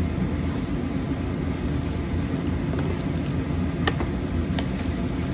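Steady low rumble with a few short clicks, the sharpest about four seconds in.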